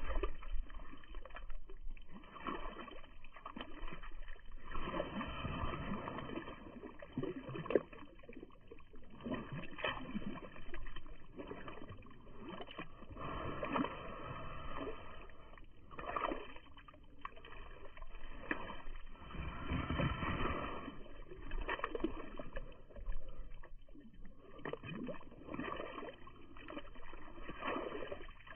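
Wet mud squelching and slopping in irregular bursts as a French bulldog digs and pushes its muzzle through a muddy puddle.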